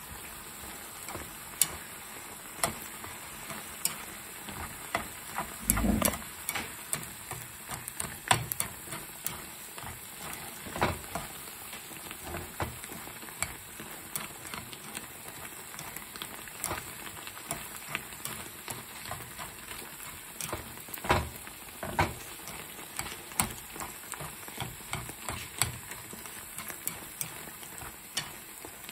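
Canned tuna, bell peppers and onion frying in a nonstick skillet with a steady sizzle, stirred with tongs that click and scrape against the pan at irregular moments. A louder knock comes about six seconds in.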